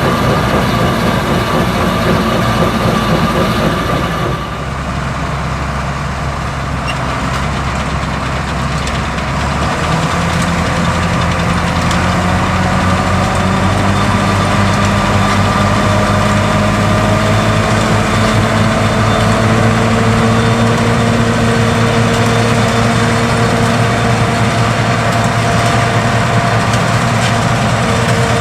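John Deere 7720 Turbo combine's turbocharged diesel engine running steadily while harvesting. It drops in level about four seconds in, and from about ten seconds the engine note climbs slowly.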